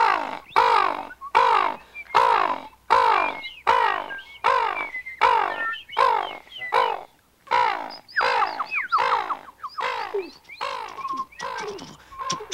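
A man's voice imitating a crow: a long run of harsh, pitched 'caw' calls, each sliding down in pitch, about two a second, turning quicker and more ragged near the end.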